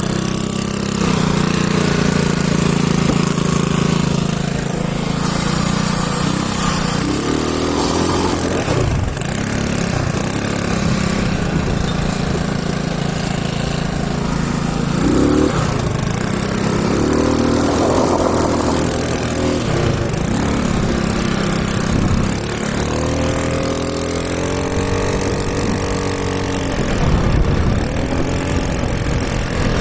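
Small motorcycle engine running under way, holding a steady note and then revving up and dropping back several times.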